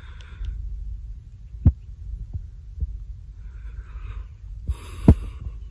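Low steady wind rumble on the phone's microphone, with a few dull thumps from the phone being handled, the loudest about five seconds in, and a couple of soft breaths.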